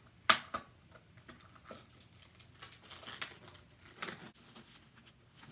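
Plastic shrink wrap being picked at and peeled off a machine's casing: scattered crinkles and clicks, the loudest a sharp click about a third of a second in.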